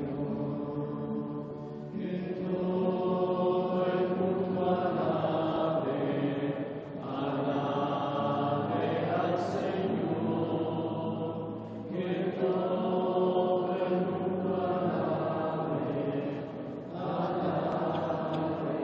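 A congregation singing a Taizé chant together: one short sung phrase repeated over and over, each round lasting about five seconds, with a brief dip for breath between rounds.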